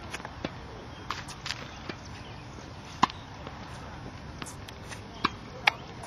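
Tennis rally on a hard court: sharp pops of balls struck by rackets and bouncing. They come at uneven intervals, the loudest about three seconds in and two more near the end, over a steady outdoor hiss.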